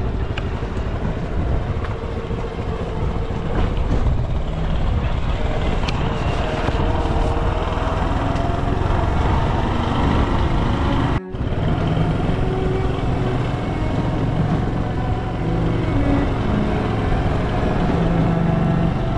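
Small motorcycle's engine running on the move, with wind and road noise on the onboard microphone; the engine note shifts up and down. A brief break about 11 seconds in.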